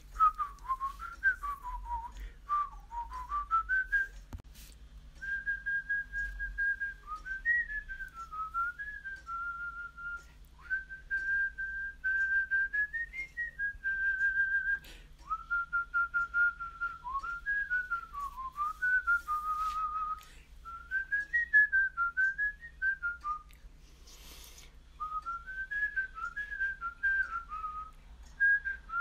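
A melody whistled by a person, one line of notes that step and slide up and down in phrases with short breaks between them.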